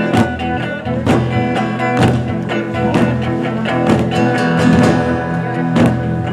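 Instrumental break in a worship song: a large pow wow drum struck steadily about twice a second under sustained guitar chords.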